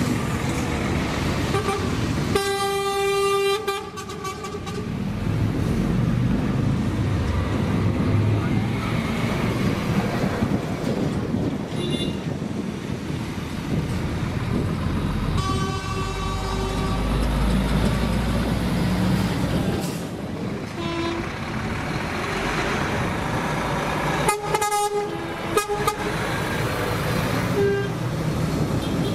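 Heavy trucks' diesel engines rumbling as they pass slowly, with truck air horns sounding long blasts about two seconds in, around the middle and again near the end.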